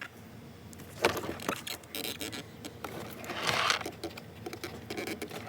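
Handling noise from work on a car door's inner parts: scattered sharp clicks and knocks, with a short rustling scrape about three and a half seconds in.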